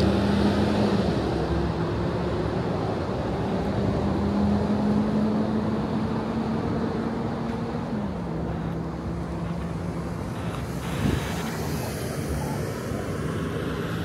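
Street traffic noise with a vehicle engine's steady hum, which steps down in pitch about eight seconds in.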